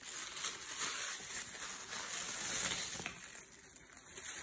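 Tissue paper rustling and crinkling as it is pulled out of a leather ballet flat and handled, dying down after about three seconds.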